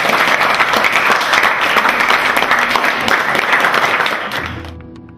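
A class of schoolchildren clapping together in a dense round of applause that fades away about four and a half seconds in. Soft music begins just after.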